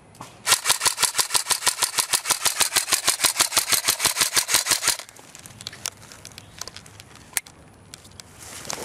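M16-style airsoft rifle firing one long full-auto burst of rapid, evenly spaced shots, lasting about four and a half seconds and starting about half a second in. A few scattered faint clicks follow.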